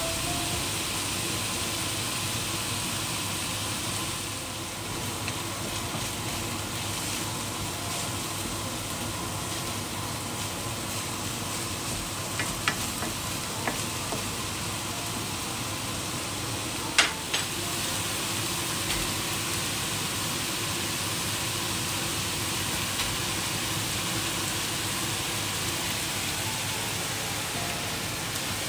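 Minced meat and chopped onion sizzling steadily in a frying pan. A few short sharp clicks come through around the middle.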